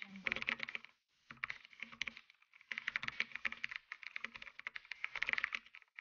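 Rapid computer-keyboard typing: fast runs of key clicks broken by short pauses about a second in and about two and a half seconds in.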